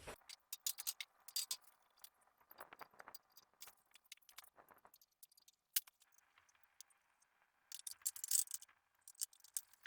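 Scattered light metallic clinks and rattles of small metal parts and tools being handled during bandsaw assembly, with one sharp click about six seconds in and a quick flurry of clinks near the end.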